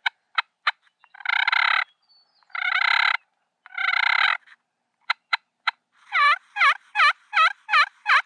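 Wild turkey calling: a few sharp clucks, then three longer raspy calls, then a steady series of about nine yelps, roughly three a second, near the end.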